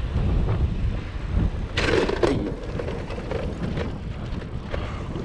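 Wind rumbling on the microphone over the rolling noise of a bicycle being ridden, with a short clattering burst about two seconds in.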